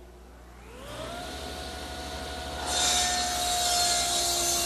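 Table saw motor spinning up, its whine rising and then holding steady. About three seconds in, the blade starts ripping through a wooden board and the sound becomes much louder, the cut running on steadily.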